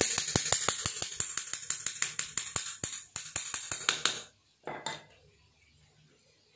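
Rapid, even metallic tapping, about six light knocks a second with a bright ring, as a flat steel blade is worked against the inner ring of a cast-iron housed insert bearing. The tapping stops about four seconds in, followed by one brief handling clatter.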